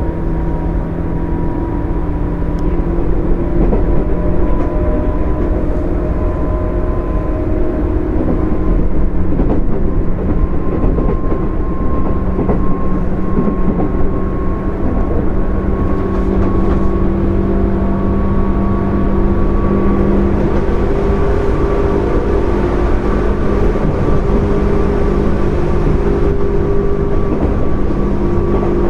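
Running sound of a JR 205 series 0-subseries electric train with field-added excitation control: a steady rumble of wheels on rail with the whine of its DC traction motors and gears, rising slowly in pitch as the train gathers speed.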